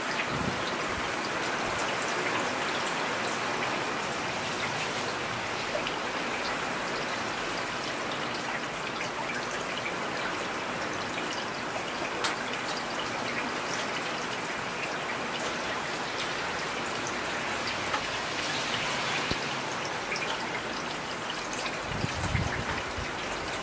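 Heavy rain falling steadily: a dense, even hiss with scattered sharp drop ticks. A brief low rumble comes in near the end.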